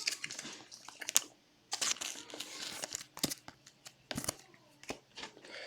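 Crinkling and rustling of trading-card packs being handled, with scattered short clicks and scuffs of cards sliding against each other.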